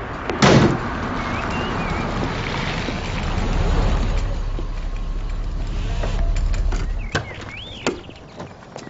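A car engine running with a steady low rumble, which cuts off about seven seconds in, followed by a couple of clicks. A sharp knock sounds about half a second in.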